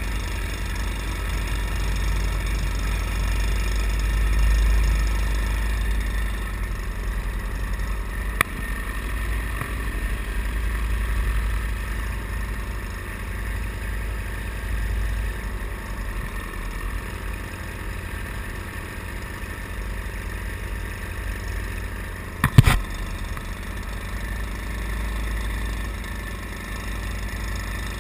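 Wind buffeting the camera microphone, a steady low rumble. A sharp click about eight seconds in and a louder double knock about twenty-two seconds in.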